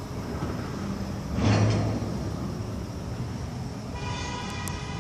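Freight train tank cars rolling slowly past on jointed rail with a steady low rumble. A loud clank comes about a second and a half in, and a high-pitched squeal starts near the end.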